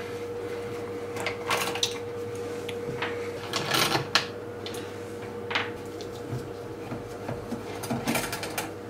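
An Allen key undoing the four bolts of a 52cc chainsaw's recoil starter housing: irregular metallic clicks and scrapes of the key and bolts against the plastic housing, over a steady hum.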